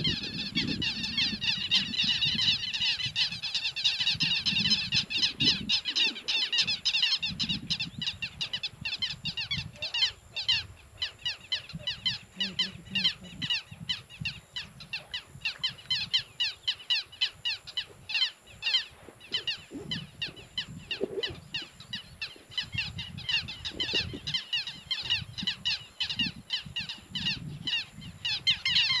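A flock of birds calling together: a dense chatter of rapid, short high calls. It thins out through the middle and thickens again near the end.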